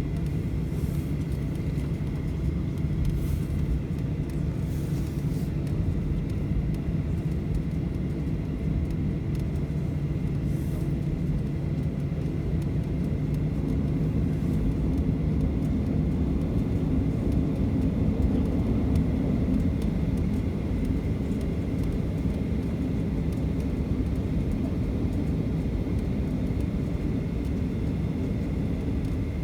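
Cabin noise inside a Boeing 737 on the ground after landing: the engines running at idle as a steady low rumble with a thin high whine, swelling slightly a little past halfway.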